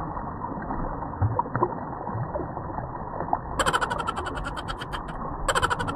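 Shallow river water running and sloshing around rocks as a man wades through it, with a few small splashes. Two louder bursts of crackling noise come about halfway through and again near the end.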